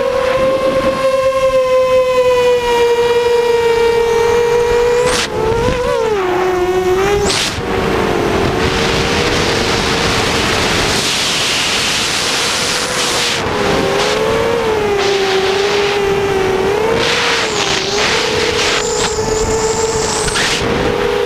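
FPV quadcopter's brushless motors (Cobra 2208 2000KV) and 6-inch propellers whining in flight, the pitch dipping and rising with throttle through turns, with wind rushing over the onboard camera's microphone at times.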